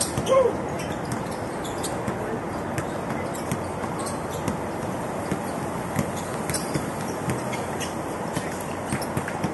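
Outdoor basketball game: scattered sharp knocks of the ball and players' shoes on the court and a few short squeaks, over a steady background hum; one louder squeak or shout comes about half a second in.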